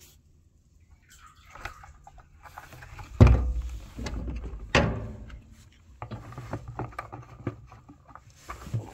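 Plastic 5-gallon pail of hydraulic fluid being lifted off the filler and handled on the excavator's deck: irregular knocks and rustling, with two loud thumps about three and five seconds in.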